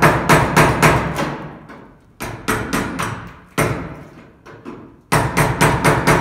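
A hammer drives a chisel into the old sheet-steel flange where the quarter panel joined the deck filler panel, cutting it free. The strikes come in quick runs of about five a second, each ringing briefly, with short pauses between runs.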